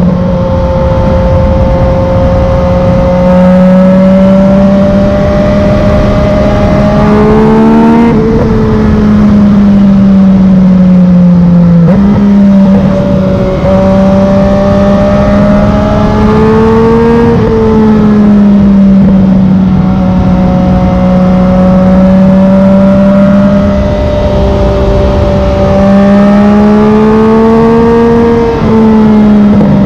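Yamaha MT-09's inline three-cylinder engine through a Black Widow carbon full exhaust, heard while riding. It pulls at road speed, its pitch climbing and falling with the throttle. There are sudden pitch steps at the gear changes: three sharp drops and one jump back up.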